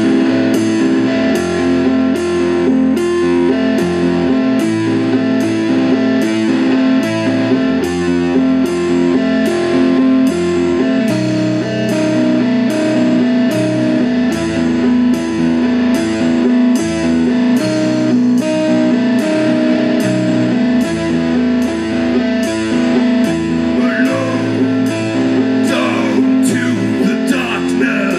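Live rock band playing an instrumental passage: electric guitars repeat a riff over bass guitar and drums, with a regular cymbal beat.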